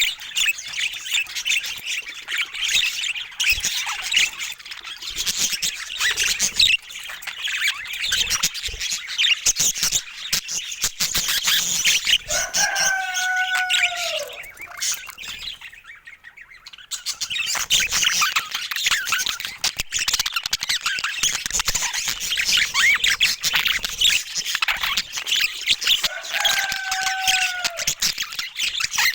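Budgies chattering and warbling in a rapid, continuous stream of high chirps, with a short lull a little past halfway. Twice, once before the lull and once near the end, a longer, lower held call stands out and dips in pitch at its end.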